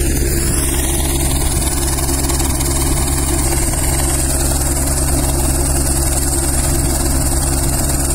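Rescue helicopter's engine and rotor running steadily, a loud unbroken drone with a constant high whine over it.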